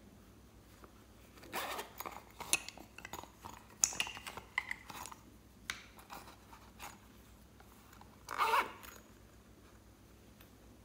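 Zipper on a mouse-head coin purse being unzipped in a series of short scraping pulls, then zipped shut with one quick pull near the end.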